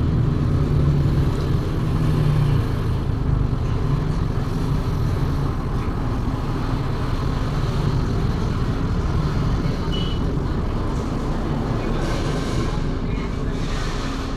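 Refrigerator compressor running steadily as it is charged with R134a refrigerant: a continuous low hum with a rumble beneath it, easing slightly after the first few seconds.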